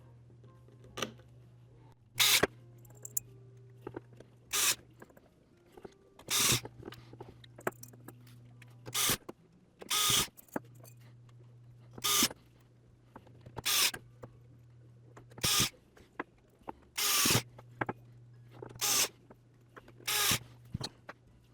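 Small electric screwdriver driving screws into a remote controller's plastic shell, in about eleven short bursts, one every second and a half to two seconds.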